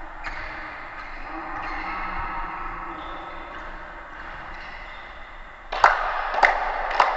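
Steady background noise of a gymnasium, then, from about six seconds in, a basketball dribbled on the hall floor: loud bounces about every 0.6 s, echoing in the hall.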